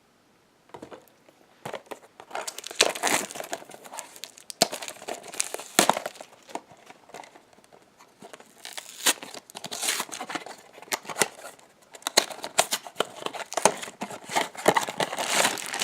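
Packaging of a Funko Mystery Minis blind box being torn and crinkled open by hand, in irregular bursts of crackling with sharp clicks, starting about a second in.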